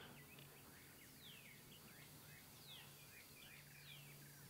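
Near silence broken by faint songbird calls: several quick downward-sliding whistles and chirps.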